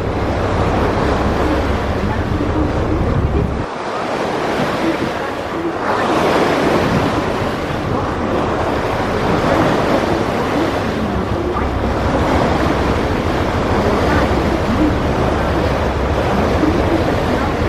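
Wind buffeting the microphone over the steady rush of river water past a moving Mersey ferry. The deep rumble of the wind drops away for a couple of seconds about four seconds in, then comes back.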